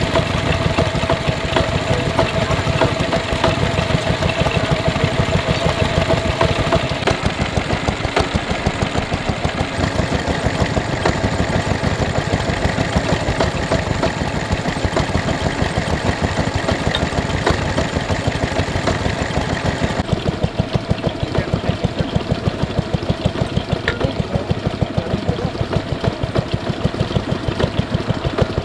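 Small vintage single-cylinder stationary engines running with a steady, rhythmic chugging beat, the sound switching from one engine to another a few times; the first drives a water pump by belt.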